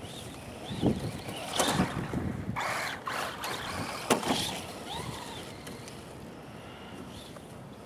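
Traxxas Rally VXL RC car's brushless electric motor whining, its pitch rising and falling again and again as the car speeds up and slows, with bursts of noise from the tyres spinning in snow. It gets quieter in the last few seconds as the car moves away.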